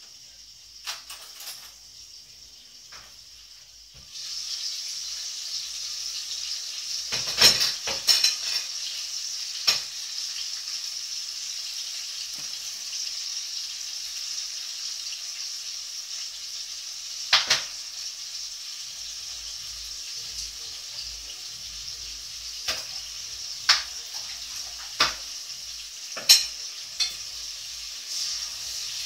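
Food frying in a pan on the stove: a steady sizzle that starts suddenly about four seconds in, with several sharp clinks and knocks of a utensil against the pan over it.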